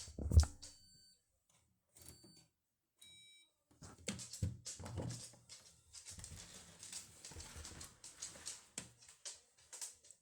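Candy washing machine at the end of its cycle: two short, faint electronic beeps about two and three seconds in, then irregular clicks and light handling noise as the program dial is turned to switch it off.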